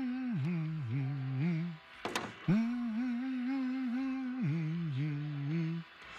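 A man's voice humming a simple tune through closed lips: a long held note, then a few lower notes, then the phrase again. A single short sharp click comes about two seconds in.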